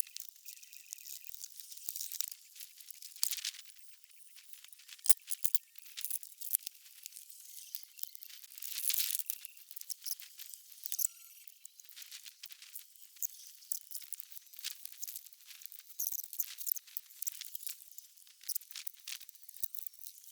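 Irregular clicks, taps and scraping from hand work on the car's bumper and fender fasteners and panels, thin-sounding with no low end.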